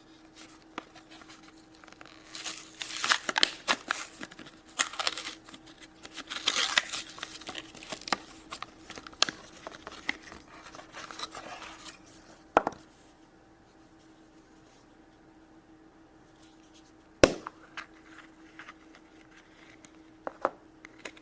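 Plastic packaging of a Furby Boom surprise packet crinkling and tearing as it is opened by hand, in bursts over the first twelve seconds or so, followed by two sharp clicks.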